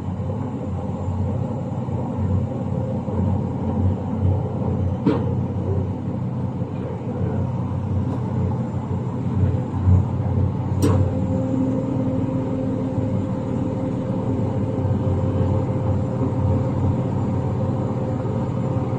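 Crane's diesel engine running steadily under a suspended load, with two sharp knocks, about five seconds in and again about eleven seconds in. After the second knock a faint steady whine joins.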